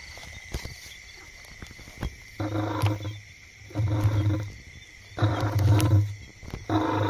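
A puppy trapped at the bottom of a narrow pit, howling in four drawn-out cries of about a second each, the first coming a couple of seconds in.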